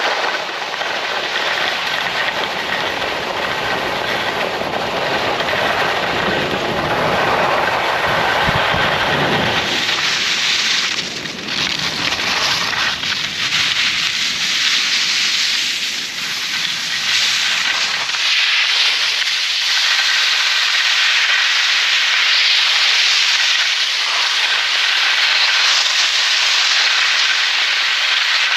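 Telemark skis hissing and scraping over snow at high speed, with wind rushing over the microphone. The low wind rumble is heavy in the first half and falls away about eighteen seconds in, leaving mostly the high hiss of the skis.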